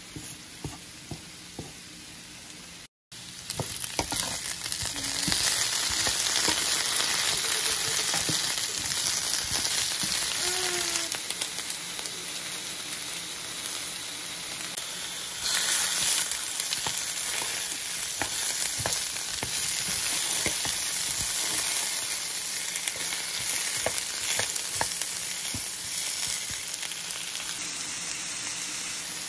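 Ground beef, then beef with sliced onion, frying and sizzling in a cast iron skillet, with a wooden spatula scraping and stirring against the pan. After a short break about three seconds in, the sizzle is louder.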